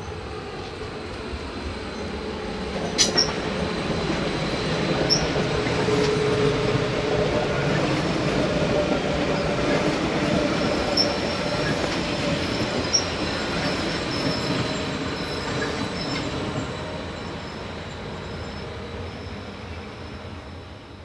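Stadler FLIRT electric multiple unit passing close by, its running noise swelling to a peak and then fading as it moves away. The wheels clatter over the rails, with a few short, high-pitched squeaks.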